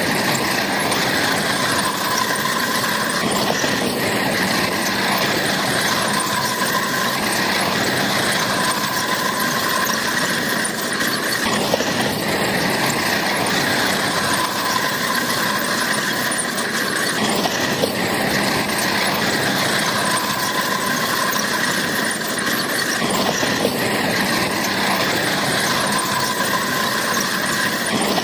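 Bulldozer working, its engine running under a high squeal from the steel crawler tracks. The squeal swells and eases in a cycle every few seconds.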